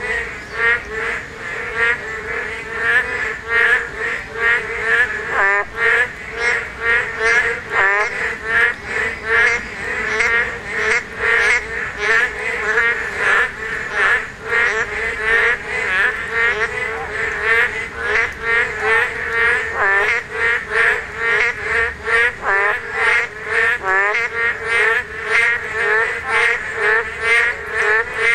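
A breeding-season chorus of Boreal digging frogs (맹꽁이, Kaloula borealis): many overlapping calls, several a second, with no break. These frogs call only in the spawning season.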